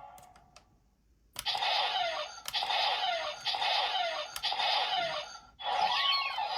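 PDX Laser Raise Riser toy transformation gadget: a few button clicks, then an electronic sound effect from its small speaker with a falling chirp repeated about twice a second. Near the end a different electronic effect with quick warbling tones starts.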